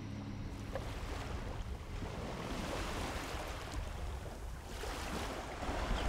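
Small sea waves lapping and washing, with some wind on the microphone; the wash turns hissier about five seconds in.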